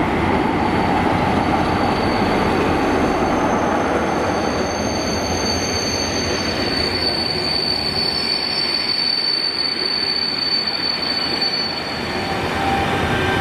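A diesel-hauled passenger train running past at close range: the locomotive goes by first, then its coaches rumble past. Through most of it a steady high-pitched wheel squeal rings out, fading near the end.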